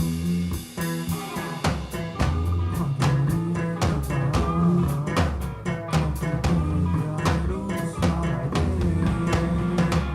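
A rock band playing live: guitar over a driving drum kit, with a steady beat.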